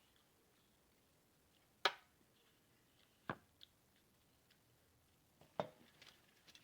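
Eating sounds close to the microphone: three sharp clicks about two, three and a half and five and a half seconds in, with a few fainter ticks between.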